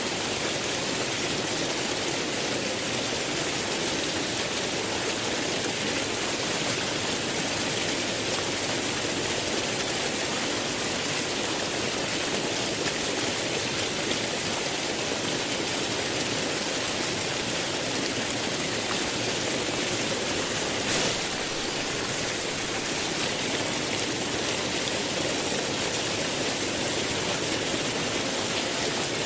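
Steady rushing of flowing water, with one brief click about two-thirds of the way through.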